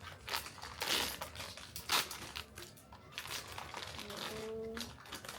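Plastic and foil blind-box packaging crinkling and crackling in irregular bursts as it is handled and torn open.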